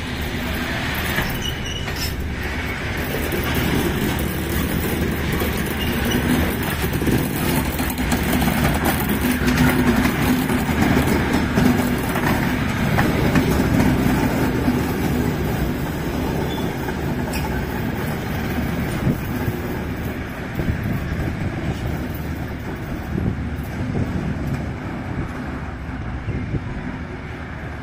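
Container freight train rolling slowly past on an industrial siding: wagon wheels rumbling over the rails, with the diesel shunting locomotive's engine loudest as it passes about ten to fifteen seconds in. The sound then fades as the train moves away.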